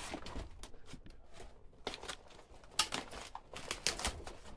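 Footsteps crunching on loose gravel and rock inside a mine tunnel: a handful of uneven steps, about one a second.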